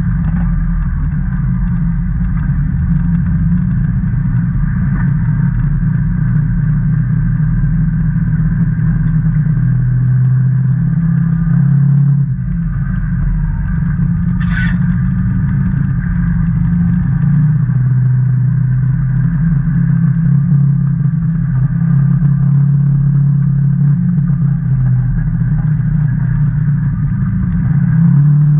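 The Rotax 800 V-twin engine of a 2019 Can-Am Maverick Trail 800 side-by-side running under way, its pitch shifting with the throttle and dipping briefly about twelve seconds in. A single sharp click about halfway through.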